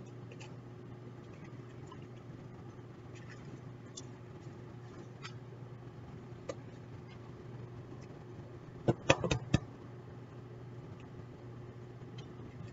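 An egg knocked against the rim of a glass measuring cup to crack it: four quick, sharp taps about nine seconds in, over a steady low hum.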